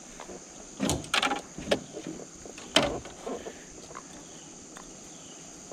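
A handful of sharp knocks and clatters in the first three seconds, the loudest about three seconds in, over a steady high drone of insects.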